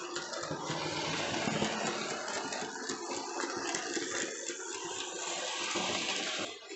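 Hornby OO-gauge model locomotive running on its track: a steady whirring and rattling of the electric motor and wheels on the rails. It cuts off near the end.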